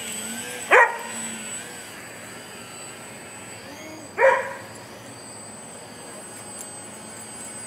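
Axi 2208/26 brushless motor and GWS 9x5 propeller of a small electric RC profile plane hovering, its whine rising and falling as the throttle is worked. A dog barks twice, about a second in and again about four seconds in; these barks are the loudest sounds.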